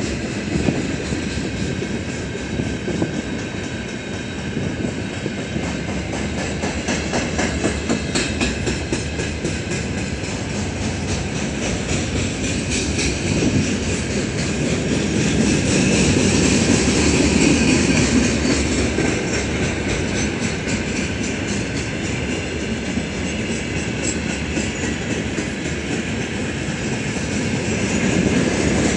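Freight train of open gondola wagons rolling past: steady wheel and rail noise with a quick run of clicks as the wheels pass the rail joints, growing louder in the middle.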